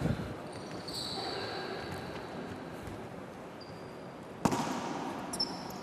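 A basketball being played on an indoor court during a drill: a hard ball thud at the start and another about four and a half seconds in, with short high sneaker squeaks on the floor in between and near the end.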